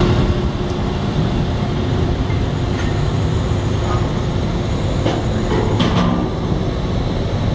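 Drilling rig machinery running with a steady heavy low rumble, with several short knocks of equipment between about three and six seconds in.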